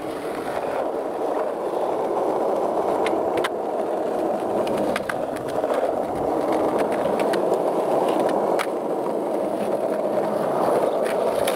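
Skateboard wheels rolling steadily over asphalt and concrete, a continuous gritty rumble with a few sharp clicks scattered through it.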